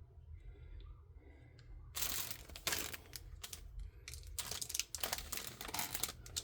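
Plastic packaging crinkling and rustling in quick, irregular bursts as it is handled, starting about two seconds in.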